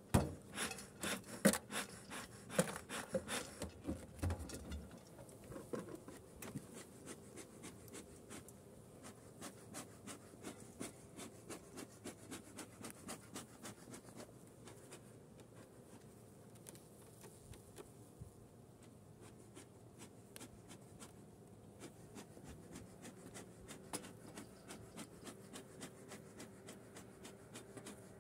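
A beehive being opened. For the first few seconds there are knocks and puffs from the beekeeper's smoker bellows, then quieter scraping and clicking of the wooden hive lid and cover board, over a faint hum of honeybees.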